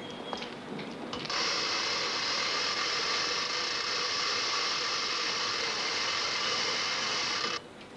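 Chain hoist lifting a wooden basket wine press: a steady mechanical grinding noise that starts abruptly a little over a second in and cuts off sharply near the end.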